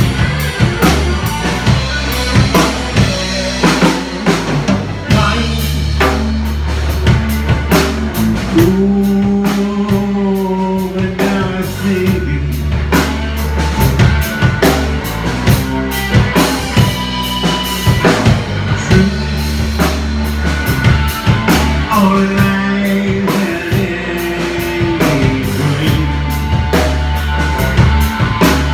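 Rock band jamming live: a drum kit keeps a steady beat under long bass guitar notes and electric guitars. Twice, held wavering lead notes stand out for a few seconds.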